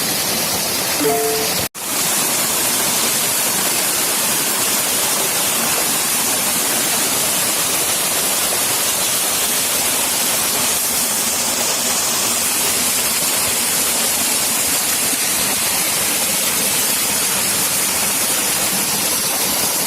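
Waterfall rushing, a dense steady roar of falling water, broken once by a split-second dropout about two seconds in.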